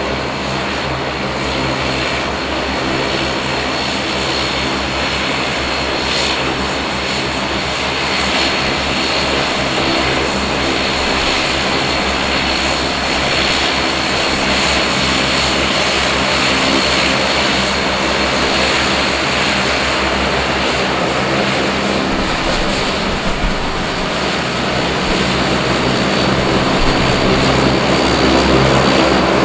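Bombardier Dash 8 Q400's twin Pratt & Whitney PW150A turboprops running at taxi power: a steady propeller drone with a high turbine whine. It grows a little louder near the end as the airliner turns toward the stand.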